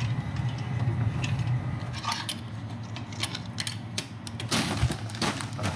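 Metal ash tool scraping and clinking inside the ash door of a small ceramic kamado grill, raking ash out into the ash pan: irregular scrapes and knocks, with a longer, louder scrape about three-quarters of the way in. A steady low hum runs underneath.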